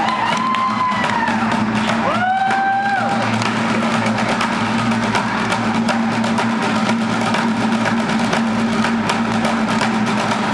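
Bucket drumming: several drummers beating a rhythm with drumsticks on plastic buckets. A few high whoops from the children in the audience rise over it in the first three seconds.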